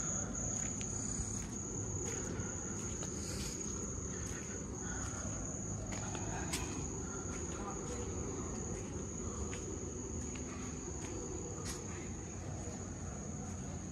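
Steady high-pitched chorus of night insects, one unbroken shrill tone, over a low rumble.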